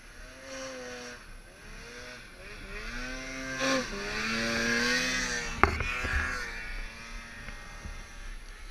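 Snowmobile engine revving up and down in repeated long swells, loudest in the middle while the machine churns up snow. A single sharp knock comes a little past halfway.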